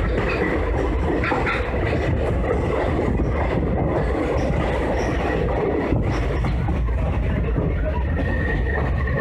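Passenger train running on the rails: a steady rumble of wheels and carriages, with a thin high squeal that grows a little stronger near the end.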